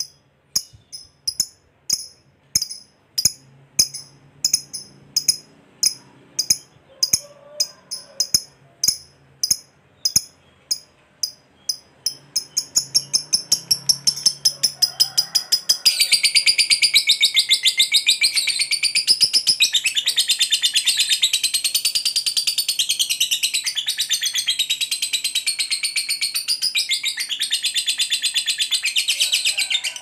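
Fischer's lovebird giving sharp, high single chirps, about two a second, that quicken into a fast rattle. About halfway through they break into a long, continuous, wavering chattering trill: the lovebird's 'ngekek panjang', its long ngekek.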